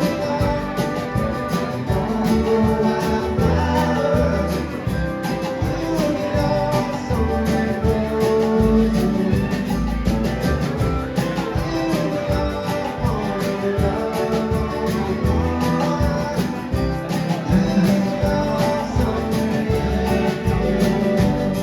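Live band playing a song, with guitar over a steady beat.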